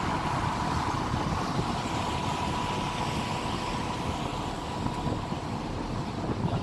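Steady running noise of a moving vehicle's engine, a dense low rumble, with a faint steady whine over it that fades out about five seconds in.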